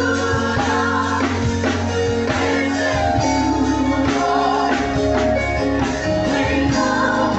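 Live gospel worship music: a choir singing with guitar and band accompaniment, played during prayer.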